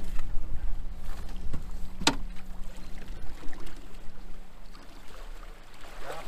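Mercury outboard motor running with a steady low hum and rumble as the boat holds in the river current. A single sharp knock about two seconds in.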